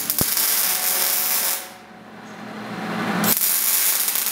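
Wire-feed welder arc crackling and hissing during tack welds on steel: one stretch of about a second and a half, a short gap, then a second stretch that swells back in and runs until near the end.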